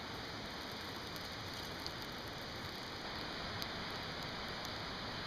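Steady rushing hiss with a few faint pops from a freshly lit campfire of twigs and moss tinder; the hiss grows a little louder about three seconds in.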